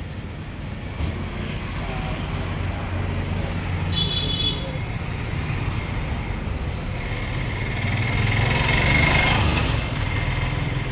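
Street traffic: a steady low rumble of motor vehicles, swelling as a vehicle passes close about eight to ten seconds in, with a short high beep about four seconds in.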